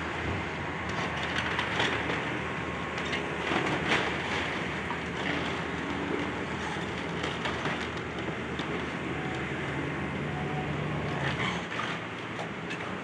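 Excavator demolishing a building: its diesel engine runs steadily under a mix of cracking and crunching debris, with the sharpest cracks about 2 and 4 seconds in.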